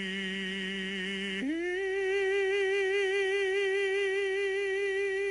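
Male operatic tenor singing live, holding a long note with vibrato, then sliding up about an octave about a second and a half in and sustaining the high final note.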